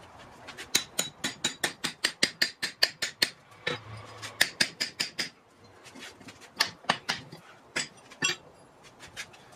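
Quick series of hand-hammer blows on a drift set in the eye of a hot Atlantic 33 steel rounding-hammer head over a bolster plate, each strike with a bright metallic ring. The blows come several a second, stop briefly, resume in a second burst, then slow to a few single strikes.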